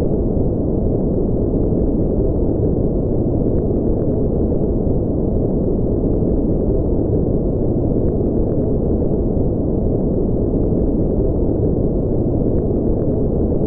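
Steady, deep rushing noise with no high end: a sci-fi spaceship engine ambience built from brown noise, unchanging throughout.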